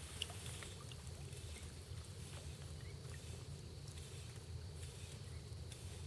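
Quiet outdoor ambience over calm water: a low steady rumble and a faint steady high tone, with a small click just after the start and a few fainter ones.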